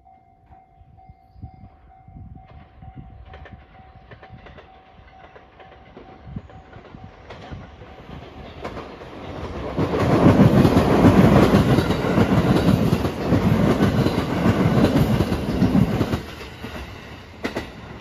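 Marine Liner rapid electric train running past close by: a rumble that builds up, then wheels clattering over rail joints for about six seconds, before it suddenly falls away.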